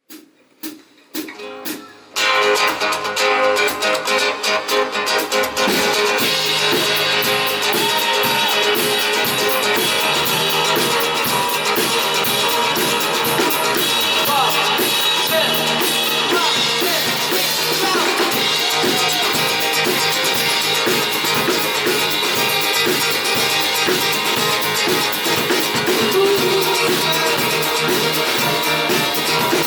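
Rock band playing live, the instrumental intro of a song: a few sharp clicks, then drum kit, guitars and bass come in together about two seconds in and play on steadily without vocals.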